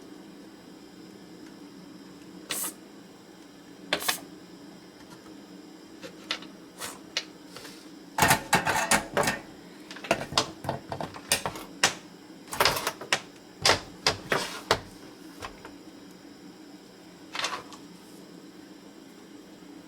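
Sharp clicks and taps of hand tools working on a circuit board while desoldering a chip: a few single clicks, then dense irregular clusters of clicking in the middle, over a steady low hum.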